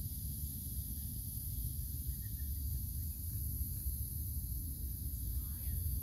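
Outdoor ambience: a low, fluctuating rumble on the microphone under a steady high hiss.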